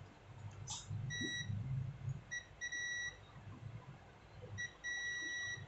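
Digital multimeter's continuity beeper sounding a steady high-pitched tone about five times, some blips short and some held for half a second or more, as its probes touch points on a power-supply circuit board: each beep marks a low-resistance path between the probed points.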